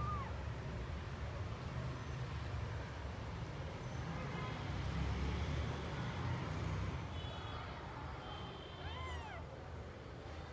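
Newborn kittens mewing while nursing: a short, high, rising-then-falling mew at the very start and another about nine seconds in, over a steady low rumble.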